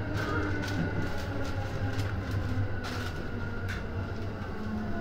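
Electric commuter train heard from inside the carriage while running: a steady low rumble with a faint whine sinking slightly in pitch, and a few sharp clacks from the wheels on the track.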